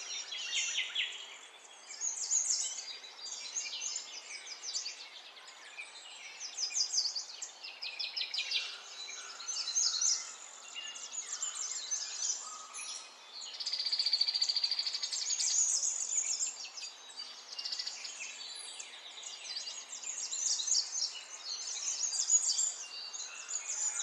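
Birds chirping and singing: a string of quick high chirps and trills, with a longer rapid trill about halfway through.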